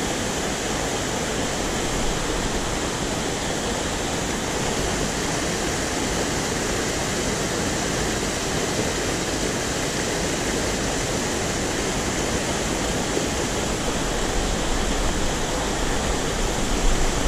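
Small mountain torrent rushing over rocks and little cascades: a steady, even rush of water.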